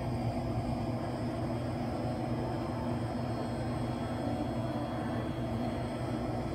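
Steady low hum and rumble of an indoor swimming pool hall, with a few faint steady tones above it.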